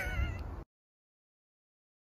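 A brief high, wavering tone, then dead silence from about two thirds of a second in, where the sound track is cut.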